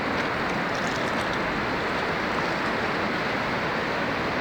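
Rushing water after heavy rain: storm runoff flowing down a channel, a steady, even rush.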